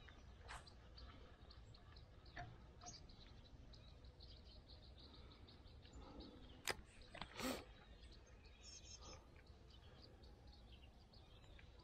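Near silence with faint outdoor ambience: a run of soft high ticks, then two sharp clicks a little past the middle, and a few faint bird chirps shortly after.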